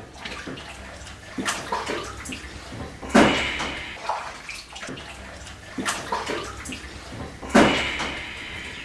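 Dishes being washed by hand in a sink of soapy water: water sloshing and splashing as crockery is handled. Two louder sudden splashes come about three and seven and a half seconds in.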